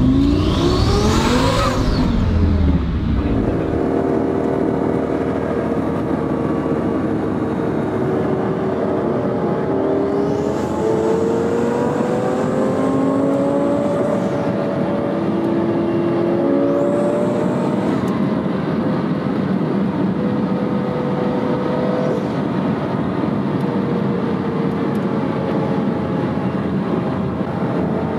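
Lamborghini Gallardo's twin-turbo V10, heard from inside the cabin: a quick rev rising sharply in pitch at the start, then a long, loud full-throttle pull with the engine note climbing slowly and holding high. The owner says the clutch can be heard slipping.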